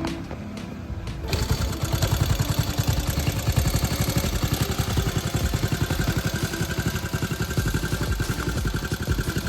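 Honda C90's small single-cylinder four-stroke engine running steadily, starting about a second in.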